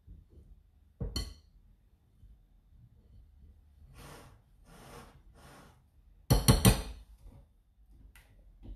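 Silicone spatula stirring cake batter and knocking against a glass mixing bowl: a sharp clink about a second in, three short swishes in the middle, then a louder cluster of knocks a little after six seconds and one more clink near the end.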